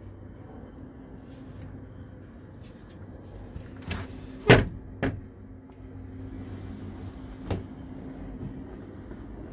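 Deck locker hatch lids on a yacht being handled: a quick cluster of knocks and bangs about halfway through, with one loud bang among them, and a single knock later.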